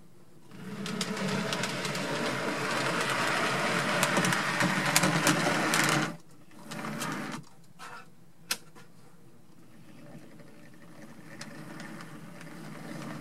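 Mantua 2-6-0 Mogul model steam locomotive running along the track, its small motor and gears buzzing with clicks from the wheels, stopping abruptly about six seconds in. A brief further run follows, then a single sharp click.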